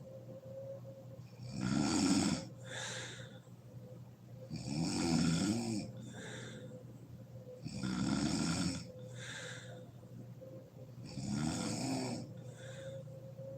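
A woman snoring in her sleep: four snores about three seconds apart, each followed by a shorter, softer breath.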